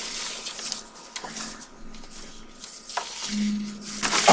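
Sheets of drawing paper rustling and being handled, with a few light knocks and a sharper knock at the end. A short low hum comes in about three seconds in.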